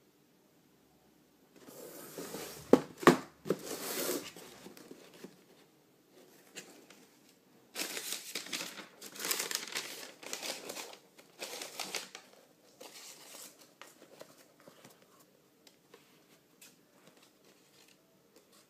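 Paper packaging crinkling and rustling as a shoebox of new shoes is unpacked by hand, in two main spells with lighter handling afterwards. Two sharp clicks, the loudest sounds, come about three seconds in.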